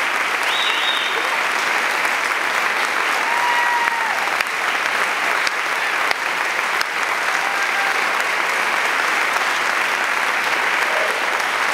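Audience applauding steadily in a concert hall, with a few cheers and whoops rising above the clapping.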